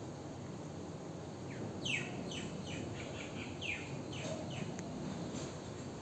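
A bird calling in a quick series of about a dozen short chirps, each falling in pitch, starting about a second and a half in and stopping near the five-second mark, over a steady low background noise.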